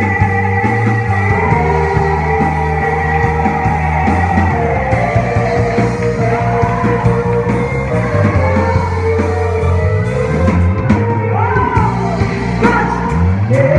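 Christian worship band playing a rock-style song, with singing over a steady band accompaniment.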